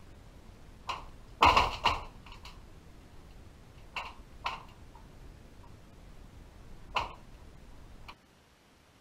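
Irregular knocks and clicks over a steady low hiss, as picked up by an underwater camera: a loud cluster about a second and a half in, then single knocks near four, four and a half and seven seconds. The hiss cuts off near the end.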